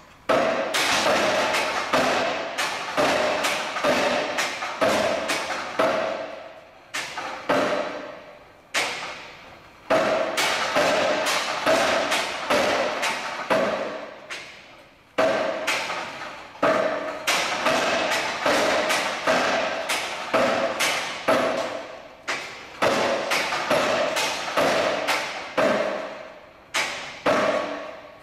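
Steel frame and lever of a pendulum-lever rig knocking and clattering as the heavy pendulum swings. A fresh loud knock comes every second or two, each followed by quicker rattling knocks that die away, all ringing with a metallic tone.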